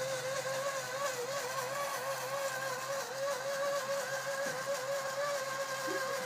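Bubble machine's small electric fan motor whirring steadily, a whine with a slightly wavering pitch.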